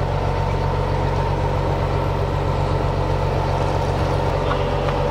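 Fishing boat's engine running steadily at rest: an even low hum with a steady higher tone riding above it.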